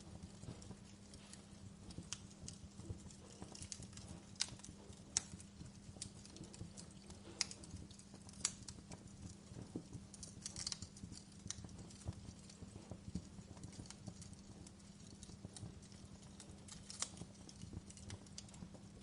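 Wood fire crackling, with irregular sharp pops and snaps, a few louder than the rest, over a low steady hum.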